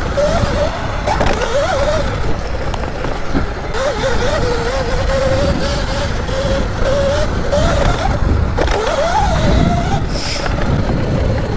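Electric dirt bike's motor whining, its pitch rising and falling with the throttle while riding off-road, over a heavy rumble of wind and tyres on the microphone.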